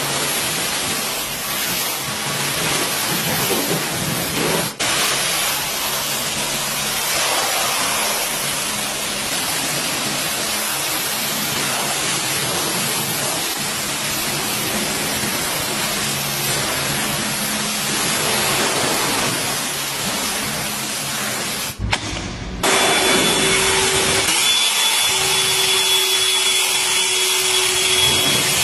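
Pressure washer spraying a jet of water onto a car's paintwork: a steady hiss over a low motor hum. About two-thirds of the way through it cuts off and a handheld electric car-drying blower takes over, a louder steady rush of air with a constant whine, blowing water off the paint.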